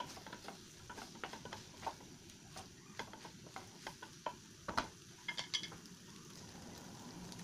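A wooden spatula and wooden chopsticks clicking and scraping against a nonstick pan as udon noodles are tossed: many light, irregular taps over a faint steady sizzle, with one louder knock a little past halfway.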